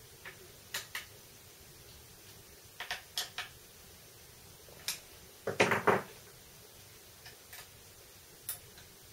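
Light metallic clicks and taps from a T-handle hex key working the socket-head bolts of a milling machine's ball-screw nut mount, with a louder metal clatter about five and a half seconds in as the steel parts are handled.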